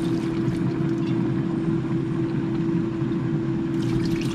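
A steady mechanical hum with one constant tone, from a kitchen appliance running during cooking, with a short spell of light clatter near the end.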